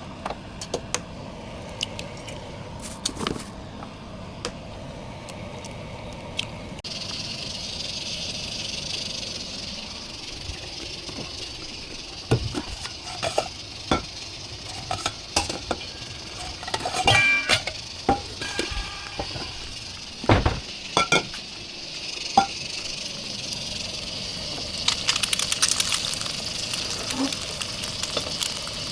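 Food sizzling in a frying pan while a utensil stirs it, knocking and clinking against the pan. The sizzling starts about seven seconds in and grows louder near the end.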